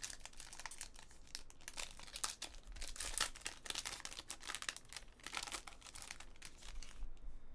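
A trading card pack's wrapper being torn open and crinkled by hand, a steady run of crackles that dies away near the end.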